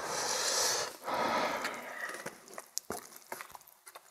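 Noodles of spicy cup ramen slurped in twice, each slurp about a second long, followed by scattered small wet clicks of chewing.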